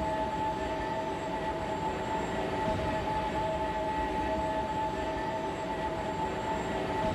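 Steady scrapyard ambience: a continuous industrial machinery drone, with two steady whining tones over a low rumbling noise and no change or break.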